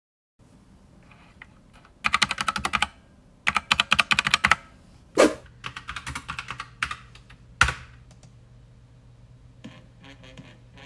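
Computer keyboard typing in quick bursts of keystrokes while a search is entered, with two heavier single key presses in between.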